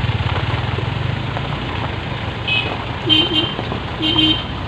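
Vehicle engine and road noise running steadily, heard from inside the moving vehicle. Two short toots sound near the end.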